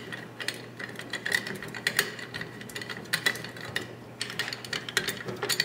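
Hand driver backing long screws out of the aluminium carriage plate of an igus linear slider: a run of small, rapid, irregular mechanical clicks.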